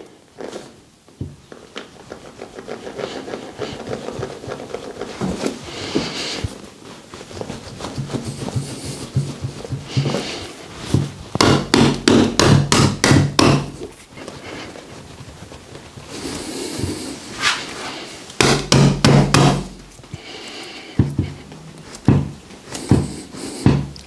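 A handheld mallet striking the heel and sole of a bare foot in rapid runs of taps, several runs in all, with quieter rubbing and handling between them.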